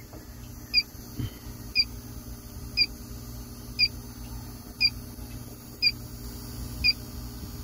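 Inficon TEK-Mate refrigerant leak detector beeping at its steady idle rate, one short high beep about every second, while its probe is run over a refrigerator's evaporator: the unchanging slow rate means no leak is found there. A low steady hum runs underneath.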